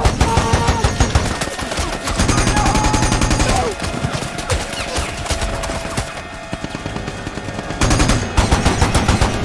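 Rapid machine-gun fire mixed with rifle shots, heavy over the first few seconds, easing off in the middle and picking up again in a dense burst near the end.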